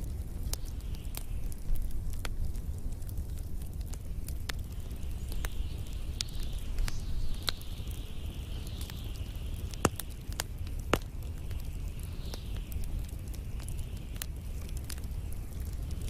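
Wood fire of logs and pine cones burning, with a low rumble and scattered sharp crackles and pops, two of them louder about two-thirds of the way through. A soft hiss rises and falls through the second half.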